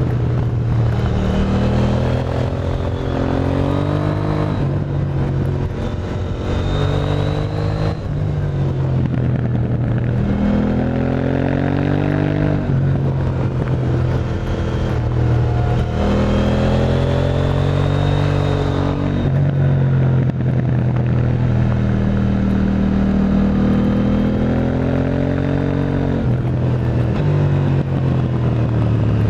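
KTM 890 Duke R's parallel-twin engine through an Akrapovic exhaust, accelerating through the gears: the pitch climbs, then drops at each upshift, several times.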